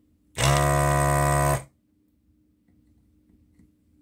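Handheld electric desoldering gun's built-in vacuum pump buzzing in one trigger-pulled burst of just over a second, starting about a third of a second in, sucking molten solder out of a through-hole joint.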